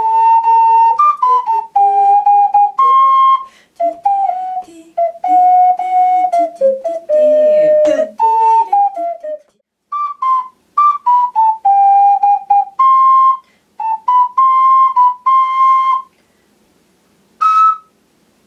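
Ocarina playing a bright melody in short, detached notes, practising the staccato articulation the piece calls for. It stops for about a second and a half near the end, then starts again.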